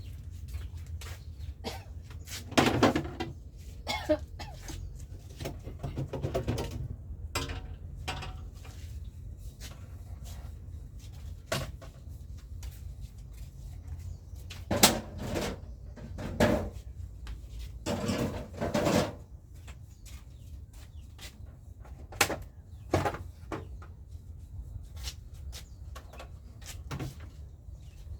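Household handling noise: irregular knocks, clicks and clatters of containers and fittings being moved and set down during fridge cleaning, with a few longer scraping or rubbing sounds.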